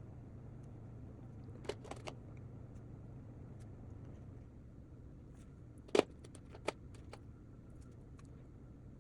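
A few sharp clicks and clinks of drawing materials being handled and set down, three light ones about two seconds in and a louder cluster about six seconds in, over a steady low hum.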